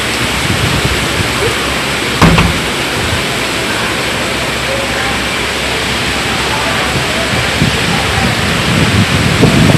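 Heavy hurricane rain pouring steadily, driven by strong wind. There is a sharp knock about two seconds in, and low gusts buffet the microphone near the end.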